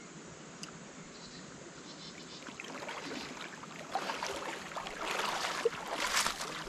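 A person wading through shallow stream water, legs sloshing and splashing with each step. The splashing grows louder over the second half as the wader comes closer.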